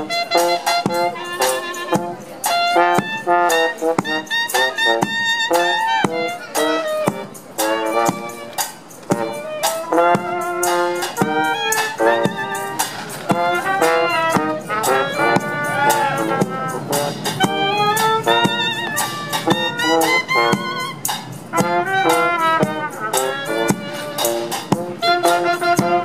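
Small street band playing a tune: trumpet and a lower brass horn carry the melody with a clarinet, over a steady bass drum beat with cymbal.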